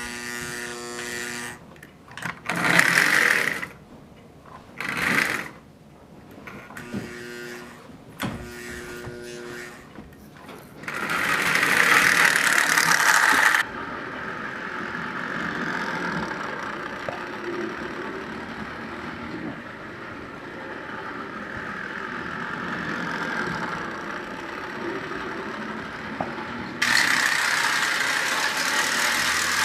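Lionel 58 rotary snowplow, a motorized O-gauge toy train unit, running on three-rail track with a whirring electric motor. In the first ten seconds it starts and stops in short bursts. After that it runs steadily, louder from about 11 to 13 seconds and again near the end.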